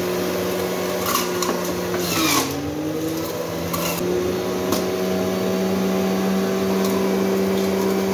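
Panasonic juicer-blender motor running steadily while juicing watermelon, with a few short knocks. Its pitch dips about two seconds in, then climbs back to speed.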